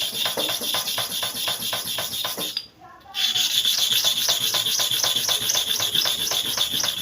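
A metal bottom clipper blade is scraped rapidly to and fro on a sharpening surface, about five strokes a second, with a short break about three seconds in. These are sharpening passes to grind the blade's face flat, where a dark patch still shows unground.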